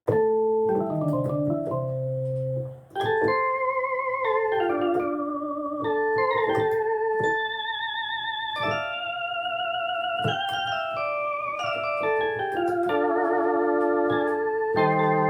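Arturia Analog Lab V software synthesizer playing a vintage keyboard patch: a melody of single notes over held bass notes, many of them wavering with vibrato, with a brief break about three seconds in.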